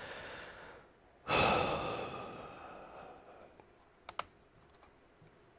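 Blasts of air blown over laptop cooling fans and grilles to clear dust: a short soft puff, then a stronger blast about a second in that starts suddenly and fades away over a couple of seconds with a faint whine in it. Two light clicks follow about four seconds in.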